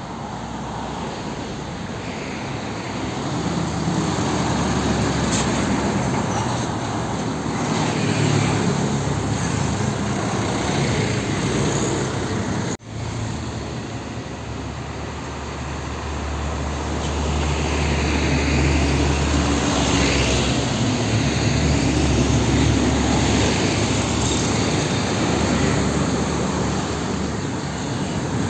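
Road traffic passing close by: cars, motorcycles and heavy diesel trucks, with tyre noise and engines running. A truck's low engine sound is loudest in the second half.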